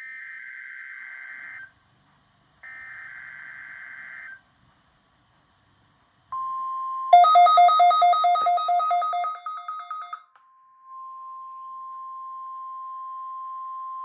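NOAA Weather Radio Required Weekly Test: two bursts of SAME digital header data, each under two seconds, then after a pause the steady 1050 Hz warning alarm tone. For about three seconds soon after the tone starts, a loud, rapid two-pitch beeping sounds over it and fades away.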